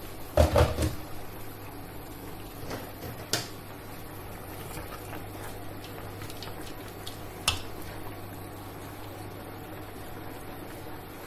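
Kitchen cookware knocking: a short cluster of heavy knocks about half a second in, then single sharp clicks twice more, over a steady low hum.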